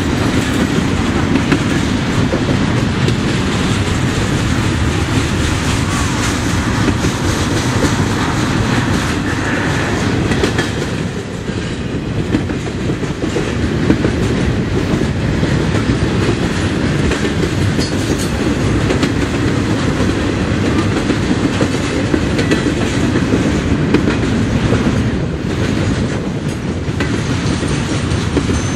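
Double-stack intermodal freight train's container cars rolling past at speed: a steady, loud rumble of wheels on rail with clickety-clack over the joints.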